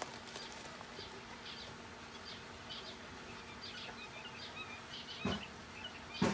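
Small birds chirping and twittering in short high calls, busier in the second half, over a faint steady hum. Two dull thumps come near the end.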